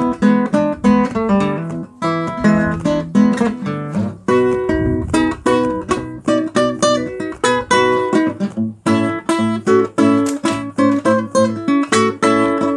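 Acoustic blues guitar music, quick plucked notes and chords in a steady flow.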